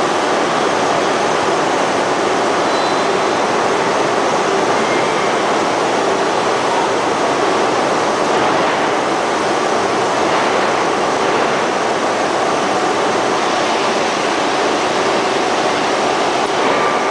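Ring-rolling mill at work, a red-hot steel ring turning between its rolls: a loud, steady noise of metal rolling, with no separate blows.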